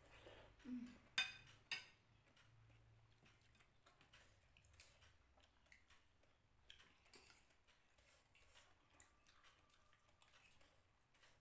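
Near silence at a meal table, broken by two sharp clicks of tableware a little over a second in, then faint scattered taps of spoons and fingers on plates and bowls.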